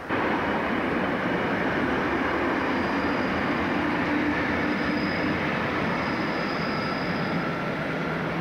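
Passenger train of SBB coaches rolling steadily past on the station tracks, with a steady rumble of wheels and a faint high wheel squeal in the middle stretch.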